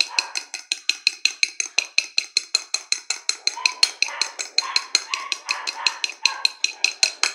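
Beaten egg whites with the yolk folded in being whisked by hand in a glass bowl: the utensil clicks against the glass in a fast, even rhythm of about six or seven strokes a second, over the soft wet sound of the foamy mixture.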